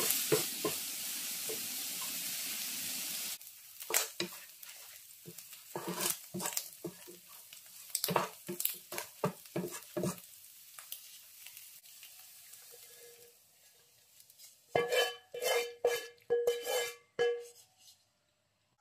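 Small prawns sizzling in oil in a nonstick frying pan, stirred with a wooden spatula. The sizzle cuts off abruptly after about three seconds, leaving scattered scrapes and clacks of the spatula over a fading hiss. Near the end comes a quick run of loud, ringing knocks of cookware.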